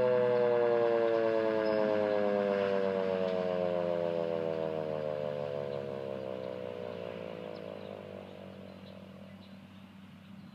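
Federal Signal 2001 electromechanical outdoor warning siren winding down, its pitch sliding steadily lower as it fades out over about nine seconds.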